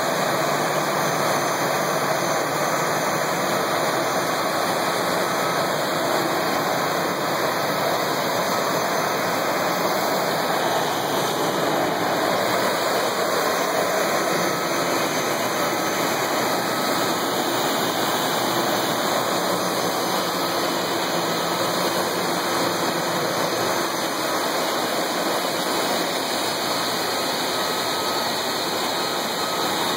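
Airbus A320 jet engines running at idle as the airliner taxis in: a steady loud rushing noise with a faint high whine.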